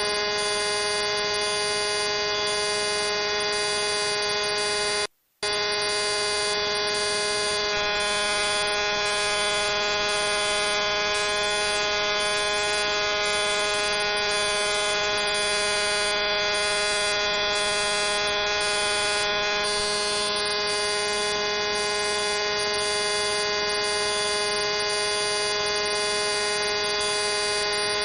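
Steady electrical buzzing hum made of many held tones, unchanging throughout, cutting out for a split second about five seconds in.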